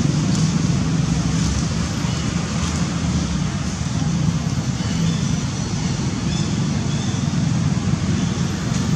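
Steady low rumbling background noise, with a few faint, short, high squeaks about halfway through.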